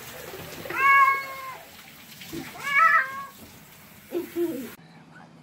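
A cat meowing loudly twice, two long drawn-out cries about two seconds apart, while being rinsed under a handheld shower with water spraying steadily.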